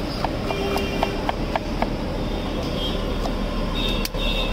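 Knife chopping green capsicum on a wooden chopping block, the blade knocking the wood in a quick, even rhythm of about four strokes a second, over steady background noise.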